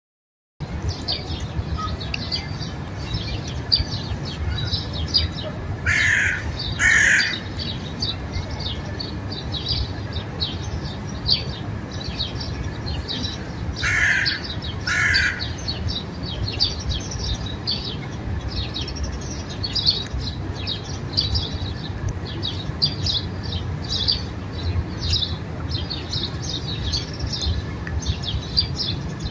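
Outdoor birdsong: many small birds chirping rapidly and without pause, over a low rumble. Twice a louder bird gives a pair of harsh calls, about six seconds in and again about fourteen seconds in.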